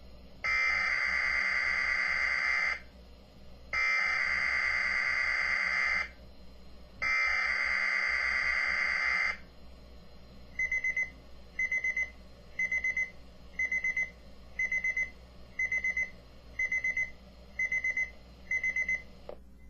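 Three buzzing bursts of weather-radio SAME digital header data, each about two seconds long with about a second between them, sent as part of a test alert. After them an electronic alert alarm beeps in quick high pip groups about once a second, about ten times, then stops.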